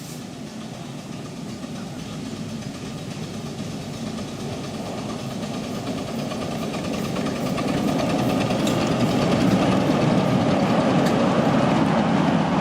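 Miniature railway train running on the track, its rumble and rail clatter growing steadily louder as it approaches, loudest in the last few seconds.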